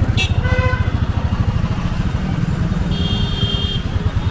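Busy street traffic with motorcycle engines running as a steady rumble. A short horn beeps about half a second in, and a higher, shriller horn sounds for most of a second near the end.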